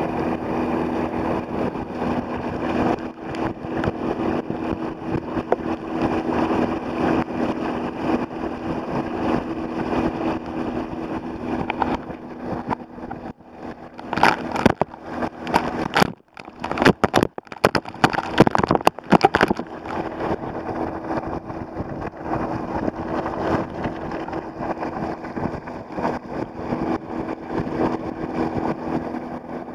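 Water rushing along a kayak hull and wind noise as the kayak is towed at about 20 mph, over the steady drone of the towing Gheenoe's small outboard motor. About halfway through come a few seconds of sharp knocks and louder splashing.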